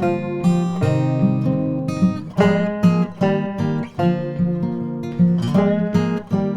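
Background music: acoustic guitar playing plucked and strummed chords at a steady pace.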